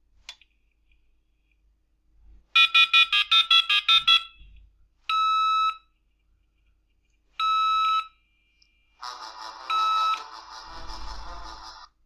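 Telephone ringing as incoming calls carry a Morse message: a fast electronic trill for about a second and a half, then two short steady beeps a couple of seconds apart, then a longer buzzy electronic ring with another beep in it. The spacing between rings encodes the Morse dots and dashes.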